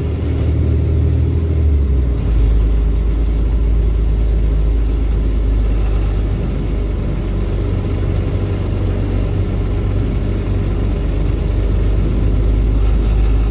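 Tri-axle dump truck's diesel engine and road noise heard from inside the cab while driving, a steady low rumble. The engine's low note drops about two seconds in.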